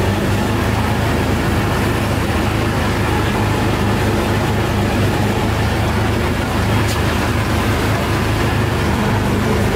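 A steady, low engine drone with road traffic noise, holding an even level throughout.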